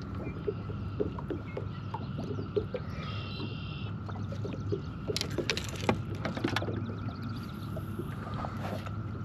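Small fishing boat drifting in the wind: water lapping against the hull with many small splashes and ticks over a steady low hum. There are several sharp knocks about five to six and a half seconds in.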